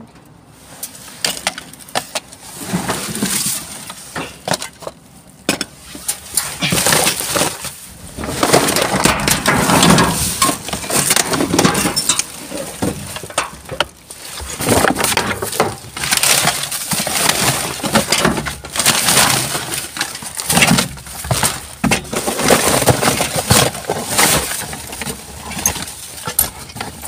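Gloved hands rummaging through a bin of discarded household items: objects knocking, clattering and clinking together in an irregular run of sharp noises.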